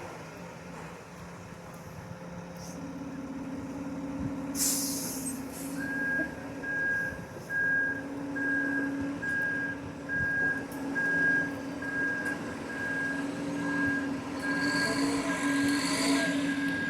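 Concrete mixer truck's engine running, with a short hiss of air about four and a half seconds in, then its reversing alarm beeping steadily, about two beeps a second, from about six seconds in.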